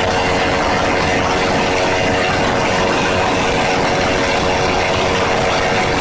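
Honda CBR motorcycle engine running flat out in sixth gear near top speed, a loud steady note that barely changes in pitch over a rushing hiss.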